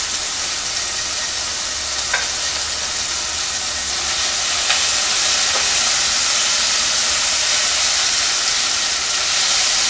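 Mixed fruit sizzling as it sautés in hot ghee and oil in a pressure cooker, a steady hiss, with a silicone spatula stirring the pieces and a few faint clicks against the pot.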